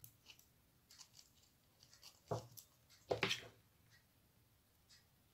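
Faint craft handling sounds of a plastic cream jar and a rhinestone ribbon strip being worked by hand: scattered small clicks, with two soft knocks a little after two and three seconds in.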